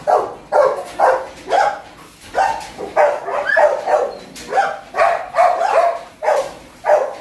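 Golden retriever barking repeatedly in short, loud barks, about two a second.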